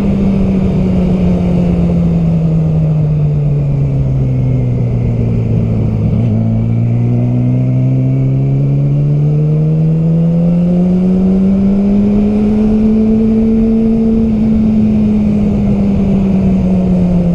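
Yamaha R6 inline-four sport-bike engine running while riding. Its note drops over the first several seconds, climbs steadily as the bike accelerates, then eases off near the end. Wind rumble sits underneath.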